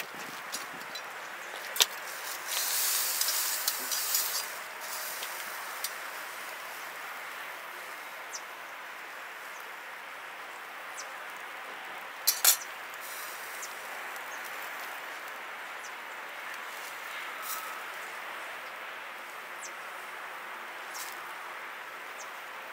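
A fallow deer haunch sizzling steadily as it sears on a hot charcoal grill grate, with a louder spell of hissing about three seconds in. Metal tongs clink sharply against the grate a few times, loudest about twelve seconds in.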